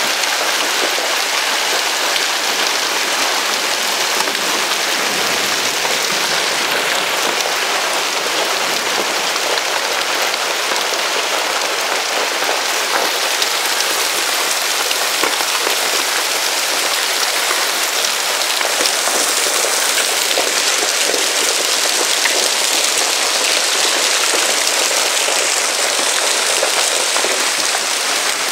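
Heavy hailstorm: large hailstones, about 4–5 cm across, falling with rain and pelting surfaces in a dense, steady clatter of countless small impacts.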